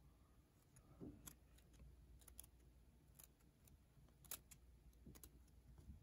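Faint, scattered clicks of rigid plastic card top loaders tapping against each other as a stack of them is thumbed through, otherwise near silence.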